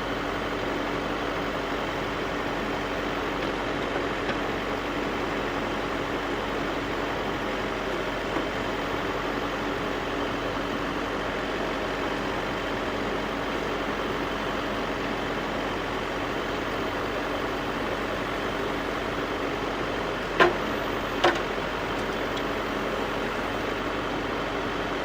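Backhoe engine running steadily, with two sharp knocks a little under a second apart near the end.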